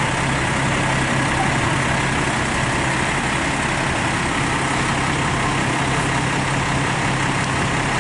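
An engine idling steadily: a constant hum under an even noisy wash, with no change in speed.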